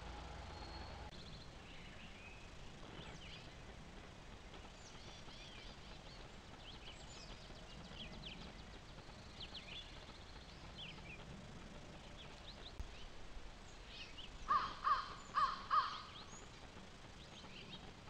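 A crow cawing four times in quick succession near the end, over scattered chirps of small songbirds.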